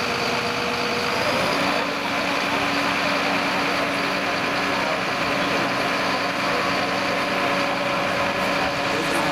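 Diesel engine of a Mercedes-Benz turntable ladder fire truck running steadily, its note shifting once about a second and a half in.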